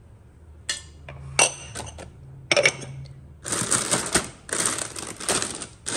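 A few sharp metallic clinks of a steel spoon and steel bowl, then from about halfway a dense crackling rustle in clumps.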